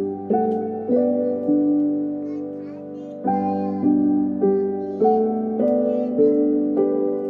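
Piano music: slow chords, with new notes struck about once or twice a second and left to ring and fade.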